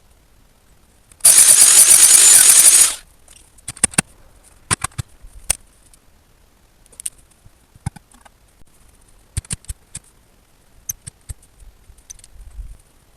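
Digging a post hole in soil: a loud scraping rush lasting nearly two seconds, about a second in, then scattered clicks and knocks of the tool, soil and stones.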